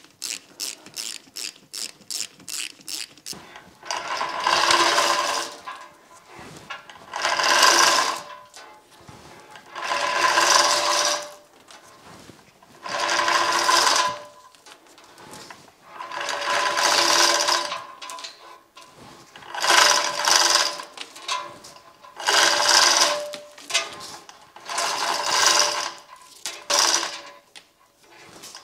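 Rapid ratchet clicking for the first few seconds. Then a chain hoist lifting the heavy cast-iron knee of a DoAll milling machine runs in about nine short bursts of gear-and-chain clatter, each a second or two long with a pause between.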